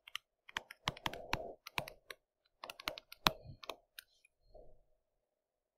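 Pen stylus clicking and tapping on a drawing tablet during handwriting: a quick, uneven run of light clicks that stops about four seconds in.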